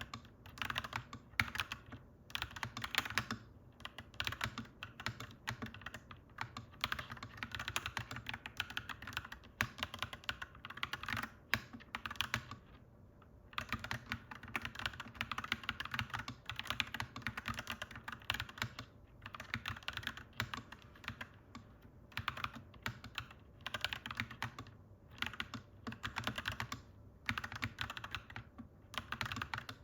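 Mechanical keyboard typed on continuously: rapid clacky keystrokes in runs, with brief pauses between bursts.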